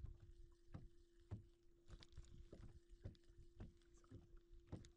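Faint sounds aboard a small fishing boat: a steady low hum with scattered light knocks and clicks.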